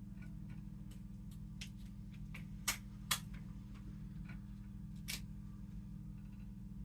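Scattered sharp clicks over steady low background music: two loud clicks close together near the middle, another about two seconds later, and several fainter ticks in between.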